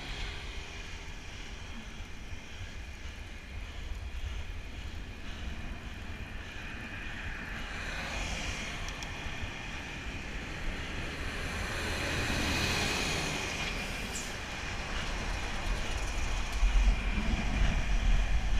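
Wind rushing over the microphone and road noise from riding a bicycle on a wet road: a steady hiss with low rumbling gusts that grow stronger in the last few seconds, and a broad swell of noise about twelve seconds in.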